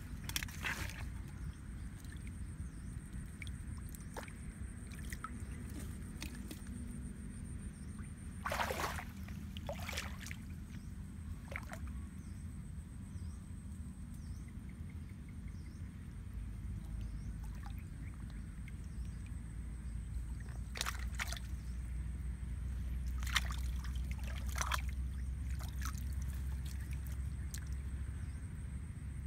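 Shallow muddy water sloshing and splashing as hands grope inside a stake-and-brush fish trap, with a few sharper splashes around 9 s, 10 s and in the second half. A low steady rumble runs underneath.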